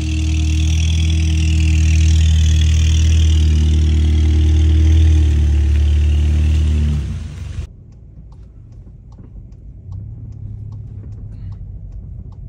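Volkswagen Golf GTI's turbocharged four-cylinder engine running close by with a steady low drone as the car rolls slowly out, a hiss over it. The drone cuts off abruptly about two-thirds of the way through, giving way to a quieter low rumble with faint ticks inside the car's cabin.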